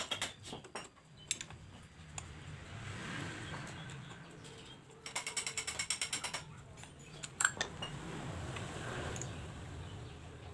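Ratchet wrench clicking as bolts are undone on a motorcycle engine's side cover, with a fast run of clicks about halfway through and scattered clicks and knocks of steel tools on the engine.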